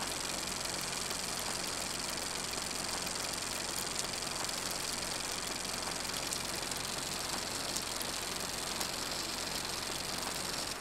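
Film projector running: a steady whir and hiss with a few faint clicks.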